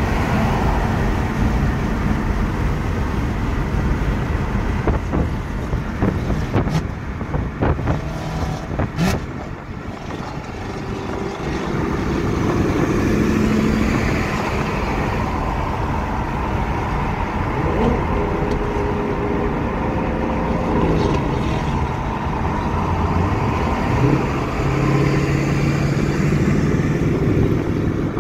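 Car engines and tyre and road noise heard from inside a moving car on a highway, the engine pitch rising and falling a few times. A few sharp clicks come about seven to nine seconds in.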